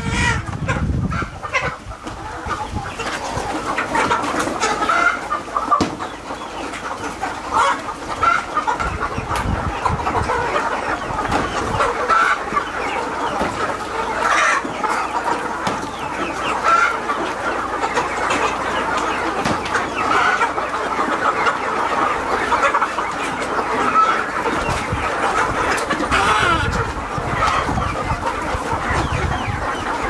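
Large flock of desi chickens and roosters clucking continuously, many birds calling over one another, with louder single calls standing out every few seconds.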